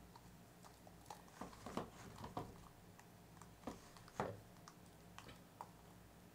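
Soft, scattered clicks and taps of set wax melt snap bars being pushed and popped out of a flexible silicone mold, with a few louder snaps about two and four seconds in.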